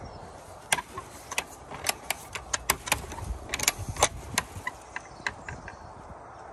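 Metal clinking and rattling: a quick, irregular run of sharp clicks as a wooden field gate's metal latch and fastenings are handled, stopping about five seconds in.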